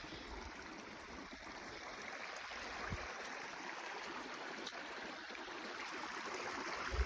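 Stream water running, a steady rushing and splashing that grows gradually louder, with a low thump about three seconds in and another near the end.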